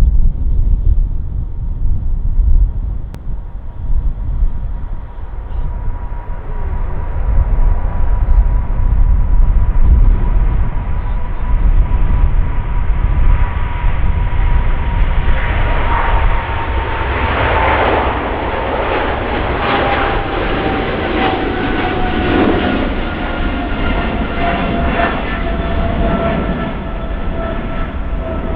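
Boeing 777-300ER's twin GE90-115B turbofans at take-off power: a deep rumble under a steady engine whine. About halfway through the whine slowly drops in pitch as the aircraft passes, and the roar turns rough and pulsing for several seconds.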